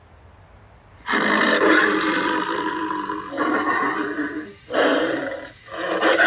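Home Depot 7 ft Howling Werewolf animatronic prop playing its recorded werewolf roar through its built-in speaker. A long rough roar starts about a second in, followed by two shorter ones after brief breaks.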